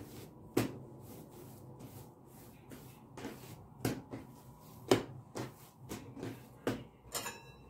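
Hands rolling and pressing yeast dough into a log on a wooden tabletop: a series of irregular soft thumps and knocks against the table, with a short ringing clink near the end.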